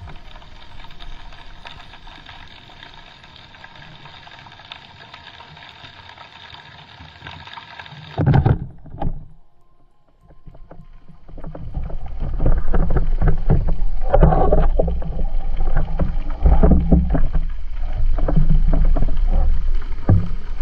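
Background music with held tones cuts off about eight seconds in, followed by two loud underwater thumps, typical of a speargun being fired. From about twelve seconds on, loud low rushing water with knocks and rattles as a freediver hauls in the speargun's shooting line.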